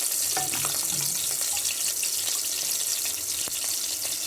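Masala-coated raw banana slices frying in hot oil in a nonstick pan: a steady sizzling hiss with scattered small crackles.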